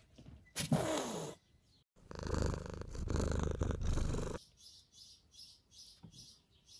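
A cat meows once with a falling pitch, then cat purring runs loud for about two seconds before stopping abruptly; afterwards only faint high chirps repeat a few times a second.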